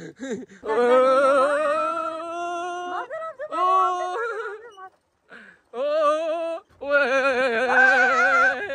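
A person's voice holding long, wavering sung or yelled notes in four stretches of one to two seconds each, with short breaks between them.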